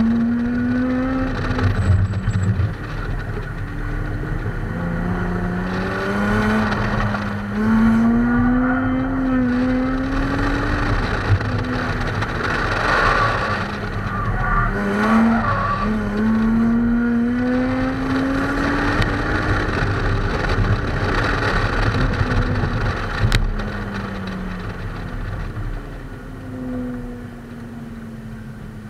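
BMW's engine heard from inside the cabin while driven hard through an autocross cone course, its pitch climbing again and again and dropping back as the driver accelerates and lifts between sections. The engine settles lower and quieter near the end as the run finishes.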